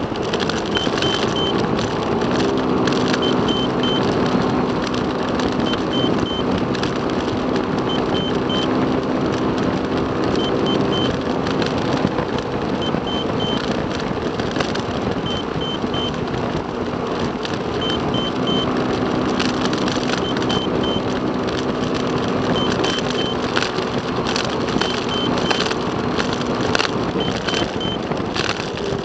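Road and engine noise inside a moving car, steady throughout, with a low hum that comes in for stretches. A short high triple beep repeats about every two and a half seconds.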